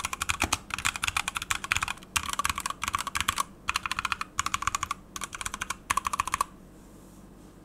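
Typing on a 61-key mechanical keyboard with Gateron switches and PBT keycaps: quick runs of clacking keystrokes with short pauses between them, stopping about six and a half seconds in.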